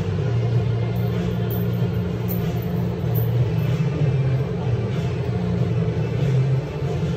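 Background music with a deep bass line, steady and fairly loud.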